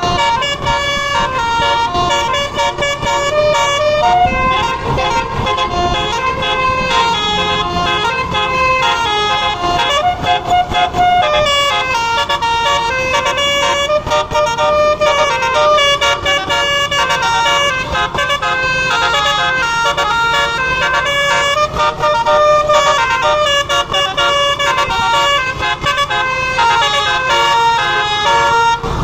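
Bus 'telolet' musical horn playing a tune, its tones stepping from note to note without a break.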